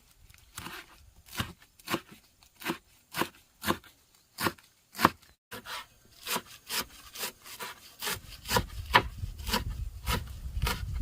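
Knife chopping on a wooden cutting board in steady strokes, about two a second, with a low rumble joining in near the end.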